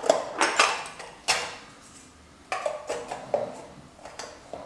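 Sharp metallic clanks and knocks from a prewar Lionel standard gauge pressed-steel hopper car being handled and set down, about half a dozen separate strikes, each with a brief ring.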